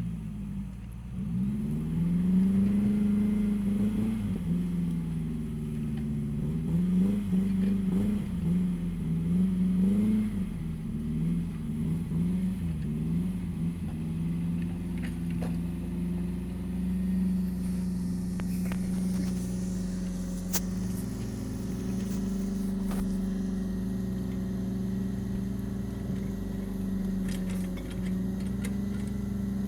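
A vehicle engine revving up and down repeatedly for the first half, then running at a steady speed.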